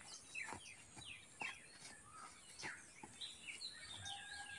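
Birds chirping: a run of short, faint chirps that sweep downward in pitch, over a soft outdoor hiss.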